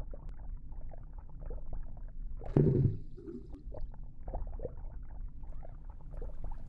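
Underwater sound of bubbling and gurgling water, muffled, with a low rumble and many small crackles. About two and a half seconds in comes one loud, sudden plunge or splash.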